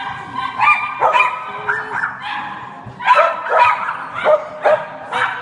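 A dog barking over and over in short, high-pitched barks, about two or three a second.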